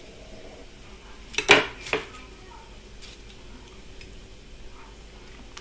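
Kitchenware knocking on a worktop: three quick clinks close together about a second and a half in, from a kitchen knife and a ceramic pie dish being handled.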